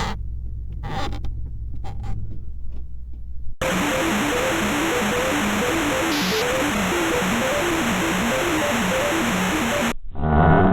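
Synthesized sound-effect samples. A low rumble with short noisy gusts gives way suddenly to a loud steady hiss carrying a simple electronic tune of short notes, which cuts off abruptly near the end as another sample begins.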